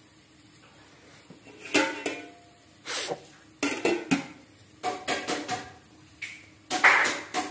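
Steel spoon clinking and scraping against a steel cooking pot holding giloy stems boiling in water. It makes an irregular series of sharp metallic knocks with a short ring, starting a little under two seconds in.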